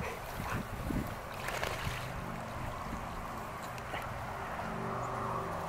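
Water splashing and lapping as a yellow Labrador retriever swims along close to the bank, with a few brief knocks in the first couple of seconds and a faint steady hum underneath.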